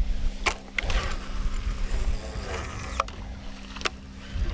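Fishing rod and baitcasting reel being worked during a cast: a few sharp clicks, over a fluctuating low rumble and a steady low hum.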